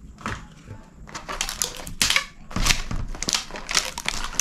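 Paper wrapping of a takeaway food parcel crinkling and rustling as the string tied around it is pulled off. It is fairly quiet at first, then a dense crackle starts about a second in and goes on.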